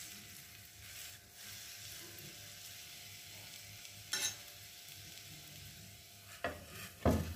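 Oil and ghee sizzling steadily under sweet potatoes roasting on a hot iron tawa, with a short tap of a knife on the pan about four seconds in. Near the end a pressure cooker is set down over them as a cover, with two metal knocks.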